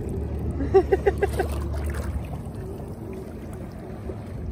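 A person's short laugh, about five quick pulses about a second in, over a low steady rumble that fades after about two seconds.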